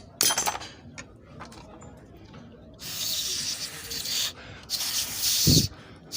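Long rasping, rubbing strokes of a hand tool working metal: two strokes of over a second each, with a short low thud near the end.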